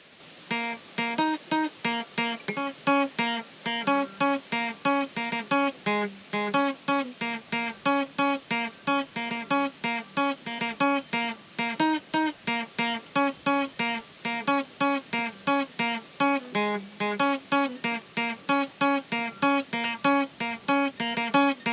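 Acoustic guitar strummed in a steady, even rhythm, about three strums a second, with no singing.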